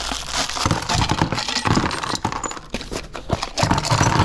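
Small metal odds and ends, buttons and little hardware bits, rattling and clinking as they are shaken and tipped out of a metal can onto a plastic tub lid.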